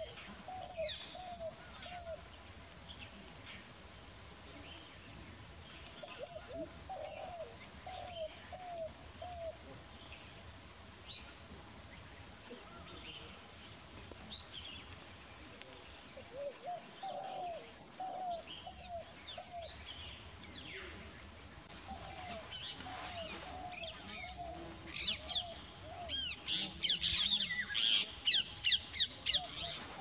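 Bar-headed geese calling in short runs of three to five soft honks, repeated every several seconds, over a steady high insect buzz. From about two-thirds of the way through, quick high chirps of small birds come in thickly and become the loudest sound.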